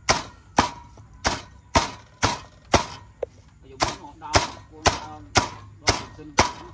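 Steady, evenly spaced chopping blows on wood, about two sharp strikes a second, as when food is chopped on a wooden board.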